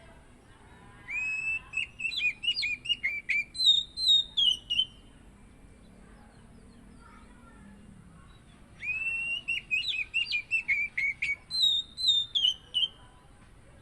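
Oriental magpie-robin singing two near-identical song phrases, each about four seconds long and several seconds apart. Each phrase opens with a rising whistle and runs through quick, clear notes that climb higher and then fall away at the end.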